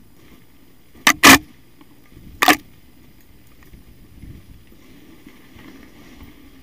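Loud knocks on a mountain-bike-mounted camera as it jolts, two close together about a second in and one more about two and a half seconds in, over a faint low rumble.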